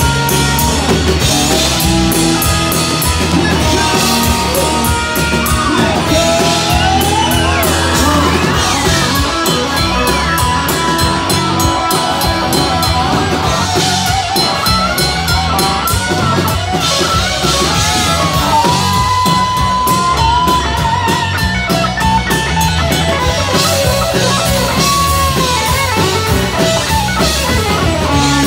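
Live rock band playing loud: drums and bass under an electric guitar lead whose notes bend and slide, with a few long held notes.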